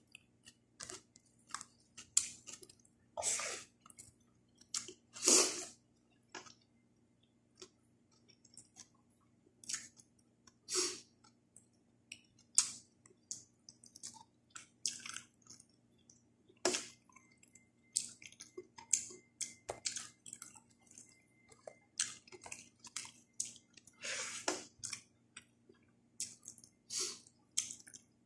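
Close-up mukbang eating sounds: a person chewing and smacking on milkfish sinigang and fresh raw vegetables, with irregular wet bites and mouth clicks and a few louder smacks.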